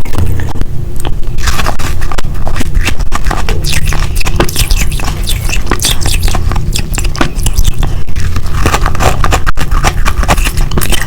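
Close-miked crunching of frost being bitten and chewed, a dense run of crackly, irregular crunches.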